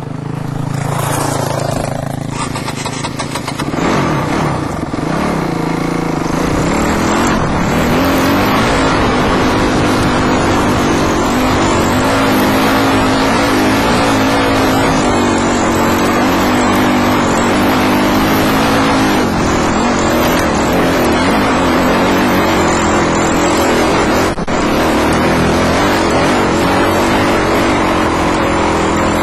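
Dirt bike engine running under way, heard close up from the rider's helmet camera. Its pitch climbs over the first several seconds, then holds fairly steady, with a brief drop about 24 seconds in.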